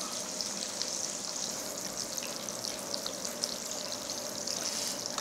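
Grilling intestines (gopchang and makchang) sizzling on a tabletop grill, a steady hiss with many small crackles of spitting fat.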